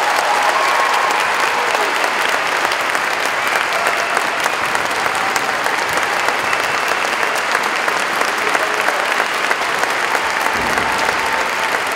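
A large audience applauding steadily as a standing ovation, a dense, even clatter of many hands clapping.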